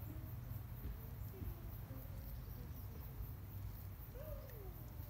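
Quiet outdoor ambience: a low, steady rumble with a few faint, short pitched calls, one of them a falling glide about four seconds in.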